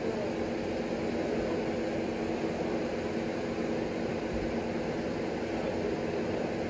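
Steady mechanical hum holding two constant low tones over an even hiss, unchanging throughout.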